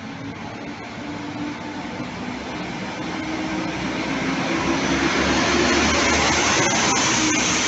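PESA Link diesel multiple unit SA139 rolling past along the platform: the diesel engine and the wheels on the rails run steadily, growing louder as the train comes closer, with a hiss that builds toward the end.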